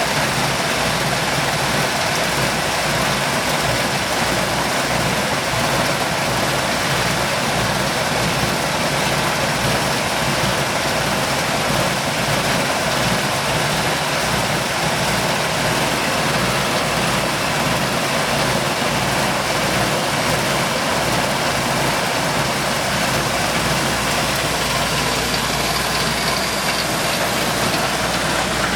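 Electric maize milling machine running steadily, a loud continuous mechanical noise.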